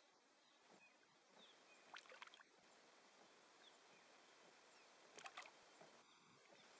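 Faint water splashes as a fish is held in the water at a kayak's side and released: two brief clusters of small splashes, about two seconds in and again about five seconds in, over a near-silent background.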